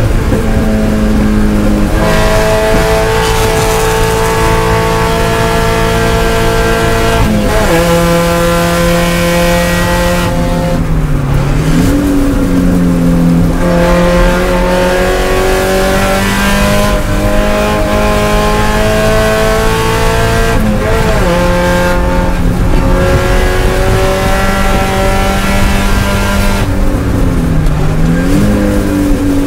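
Spec Miata race car's four-cylinder engine running hard at high revs, heard from inside the cockpit. The pitch climbs through the gears and dips briefly several times as the driver shifts and lifts for corners.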